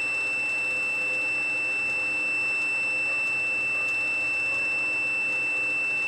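Multimeter's continuity beeper giving one steady high-pitched beep while its probes are across a washing-machine motor winding: the low resistance of the coil, about 5 ohms, sets it off.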